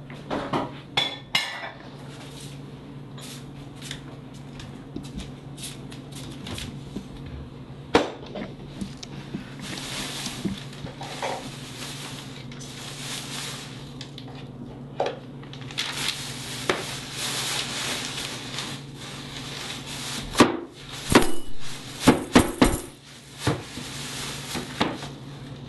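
Dishes and cutlery clinking and clattering as someone works at a kitchen counter, with scattered sharp knocks, a couple of longer hissing stretches in the middle and a cluster of louder knocks near the end, over a steady low hum.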